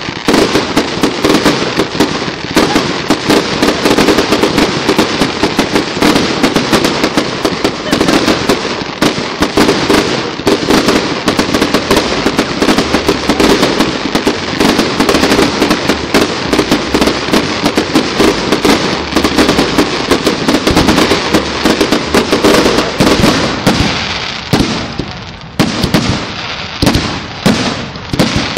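Fireworks display going off in a dense, continuous barrage of bangs and crackling. Near the end the barrage thins for a moment, then picks up again.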